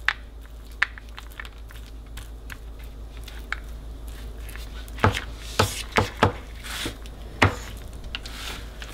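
A metal ice cream scoop scrapes seeds and stringy pulp out of a soft baked pumpkin half, with a few sharp knocks from the scoop, most of them in the second half.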